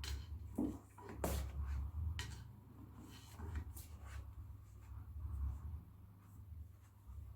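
Light handling sounds: a few sharp clicks and taps in the first four seconds and soft rustling, over a steady low hum.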